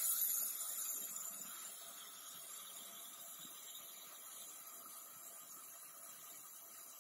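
Dental handpiece's high hiss of air and water spray, trailing off in the first second or two as the smoothing of the molar's enamel ends, leaving a steady faint hiss of suction.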